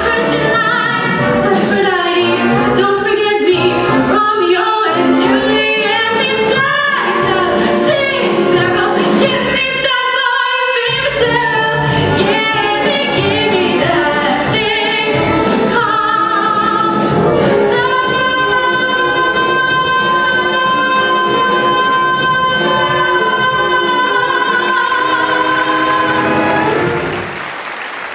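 A solo female voice sings a 1920s-style musical-theatre number with accompaniment, then holds one long, steady note about two-thirds of the way through. The sound fades down shortly before the end.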